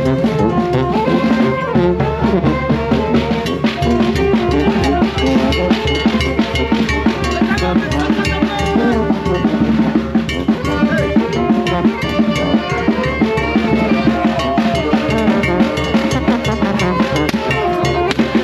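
Band music with a steady, driving drum beat under held melody notes.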